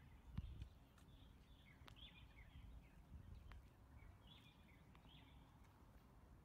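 Faint outdoor ambience: birds chirping in short bursts every second or so over a low rumble, with a brief thump about half a second in.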